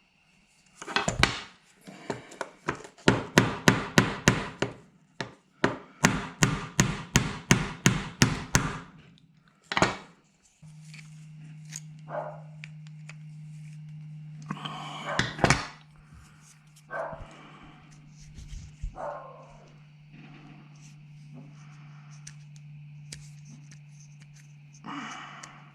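Hammer blows in two quick runs of about three a second, driving a part out of a lawn mower starter solenoid. About ten seconds in a steady low hum starts and carries on under a few scattered knocks and clatters.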